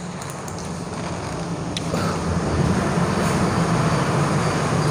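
A steady low engine-like hum with a hiss of noise, growing gradually louder.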